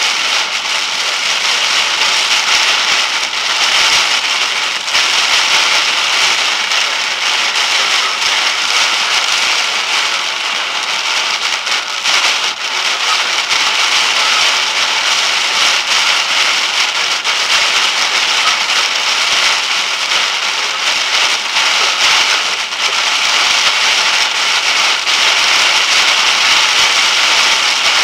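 Wind-driven rain pelting a vehicle's windshield and roof, heard from inside the cab: a steady hiss with dense crackling ticks, swelling and easing a little with the gusts.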